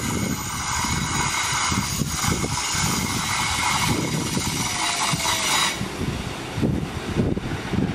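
Class 150 Sprinter diesel multiple unit running slowly into the platform, its engines and wheels making a continuous low rumble. A high hiss runs over it and cuts off suddenly about six seconds in.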